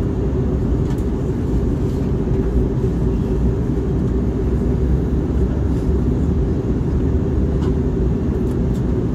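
Steady engine and airflow noise inside the cabin of an Airbus A321neo in flight, from its Pratt & Whitney PW1100G geared turbofans, a low rumble with a steady hum over it.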